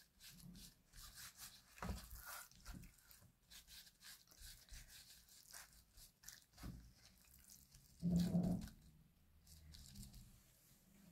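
Soft rubbing and crinkling of disposable gloves as hands rub a dry spice seasoning over raw fish fillets on a baking tray, with faint irregular clicks. About eight seconds in there is one brief, louder low-pitched sound.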